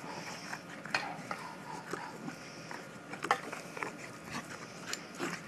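Corgi puppies play-fighting: a scatter of short, sharp scuffling and snapping sounds, the sharpest about three seconds in.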